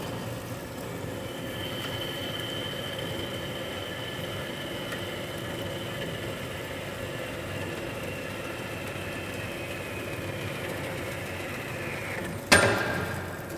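Horizontal metal-cutting bandsaw running and cutting through an aluminum part with coolant flowing: a steady hum with a high whine. Near the end the whine drops in pitch, then a loud clunk comes as the cut finishes and the saw shuts itself off, the noise dying away.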